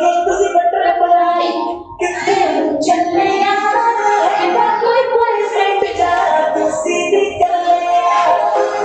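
A song with a sung vocal, played as dance-workout music. The music dips briefly about two seconds in.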